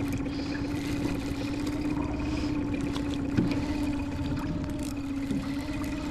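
Small dinghy outboard motor running steadily at a low, trolling speed with an even hum. A single brief knock sounds about three and a half seconds in.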